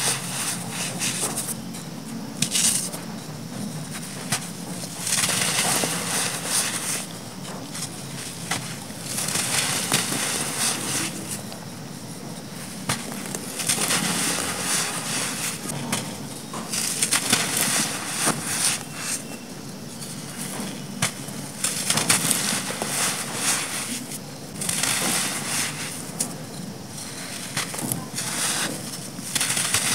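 Balls of dry black sand crushed and crumbled between the hands: gritty crunching and crackling in bursts every two to three seconds, with the loose grains spilling off in a hiss.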